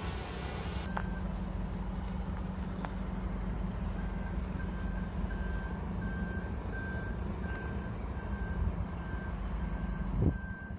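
A vehicle's reversing alarm beeping, a short high tone repeated roughly three times every two seconds, starting about four seconds in, over a steady low rumble. A single thump near the end.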